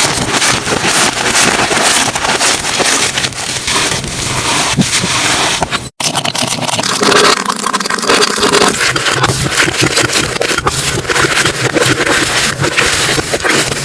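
Slime being squished and pressed by hand: dense, continuous crackling and popping clicks, with a split-second gap about six seconds in.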